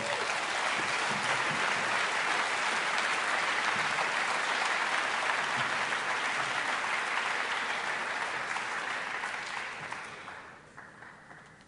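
Audience applauding. The applause starts all at once, stays steady, and fades out near the end.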